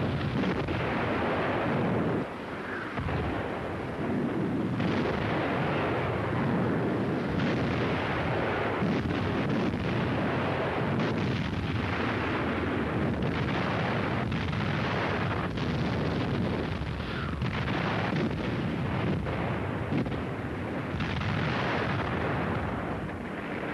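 Heavy naval gunfire and bursting shells in a continuous barrage, shots and impacts following one another with hardly a pause. A short lull comes about two seconds in.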